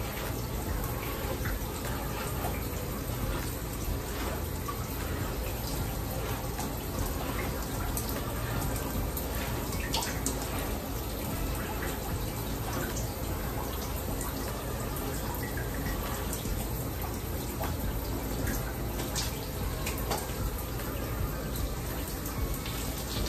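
Shower head running steadily in a tiled shower stall, a constant spray of water with scattered drips and splashes.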